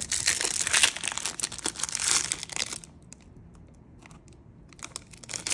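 Foil wrapper of a baseball card pack being torn open and crinkled by hand for about three seconds. After a short lull the crinkling starts again near the end.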